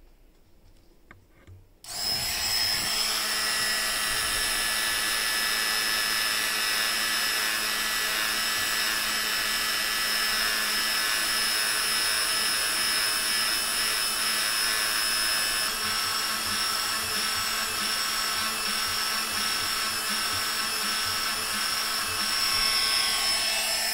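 Proxxon rotary tool switched on about two seconds in, then running at a steady speed with a steady whine while the pin in its collet is polished against emery cloth.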